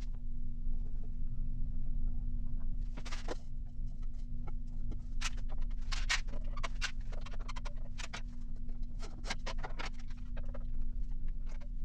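A machine hums steadily under scattered sharp clicks and knocks, with a couple of brief scraping rasps about three and six seconds in.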